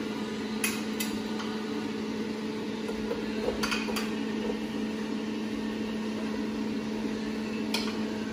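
A spoon knocking and pieces of marinated bottle gourd dropping into a metal air fryer basket: five short light knocks at uneven intervals, over a steady low electrical hum.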